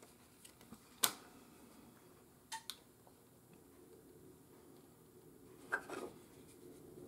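Faint handling sounds on a wooden workbench: a few sharp clicks and taps, the clearest about a second in and a quick double tap a little later, as a paper instruction booklet is folded and set down and a handheld plastic moisture meter is picked up.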